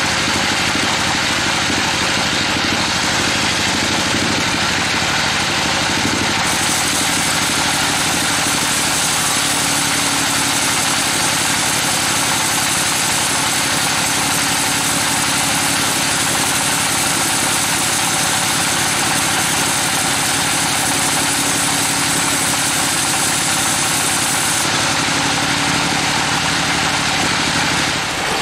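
Band sawmill running and its blade cutting through a trembesi (rain tree) log: a loud, steady mechanical noise. A brighter hiss comes in about six seconds in and drops away a few seconds before the end.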